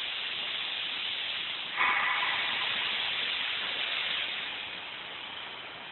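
Steady hiss, with a short high-pitched tone about two seconds in; the hiss eases off near the end.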